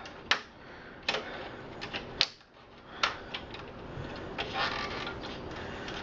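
Irregular sharp clicks and knocks of plastic and metal parts being handled inside a desktop PC case while cables and a hard drive are worked loose.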